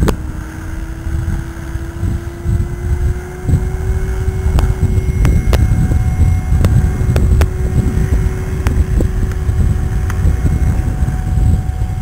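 Radio-controlled model helicopter whining, its pitch rising over the first few seconds as the rotor comes up to speed and the model lifts off, then holding steady. Heavy wind noise on the microphone runs under it, the loudest sound, with a few sharp clicks.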